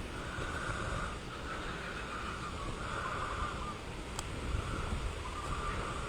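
Strong wind buffeting the microphone: a low, gusty rumble. Behind it, a fainter hiss swells and fades about once a second.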